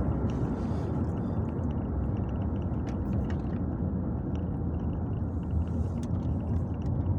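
Mk4 VW Golf GTI on the move, heard from inside the car: its 2.0 8-valve petrol engine running under way with a steady low road rumble.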